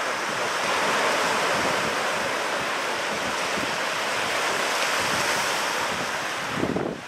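Ocean surf breaking and washing up the beach, a steady rushing hiss with some wind on the microphone, dropping off sharply just before the end.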